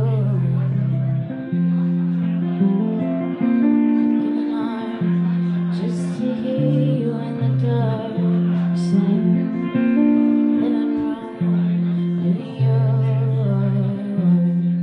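Electric guitar played live, its ringing chords changing every second or two.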